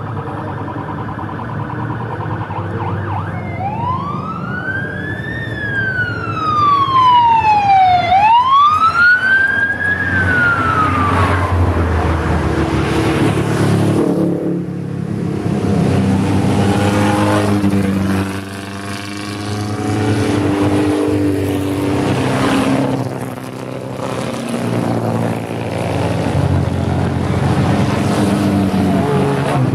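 A siren wails from about four seconds in, rising and falling twice over some eight seconds, over a low engine rumble. After that, vintage sports and racing cars pass one after another, each engine note swelling and fading as the car goes by.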